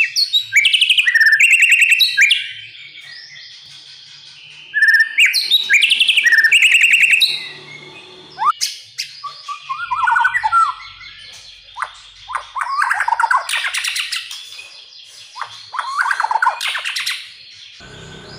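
White-rumped shama (murai batu) song: loud bursts of rich, varied whistled phrases and very fast trills, separated by short pauses.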